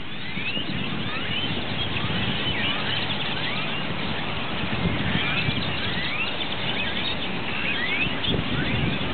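Large flock of purple martins calling as they come in to roost: many short rising chirps overlapping without pause, over a steady low rumble.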